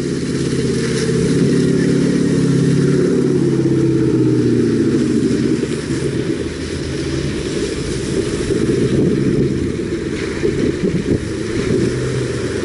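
Off-road 4x4 engine running close by under throttle, its revs easing down about four seconds in, then running rougher and less even.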